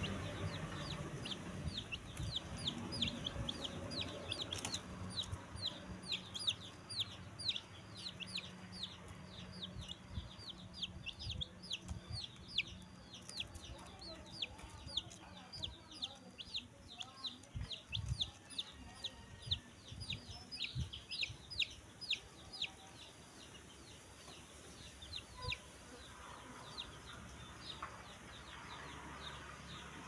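Newly hatched chicken chicks peeping: a fast, continuous run of short, high, downward-sliding peeps that thins out over the last few seconds, with a few soft low thumps around the middle.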